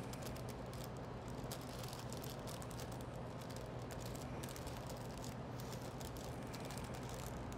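Parchment paper being folded and crimped by hand to seal a papillote packet, a quick run of small crinkles and ticks, over a steady low hum.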